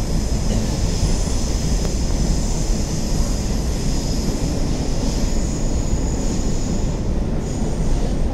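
MetrôRio subway train running between stations, heard from inside the car: a steady, loud rumble of wheels on rails with a thin, steady high-pitched whine above it.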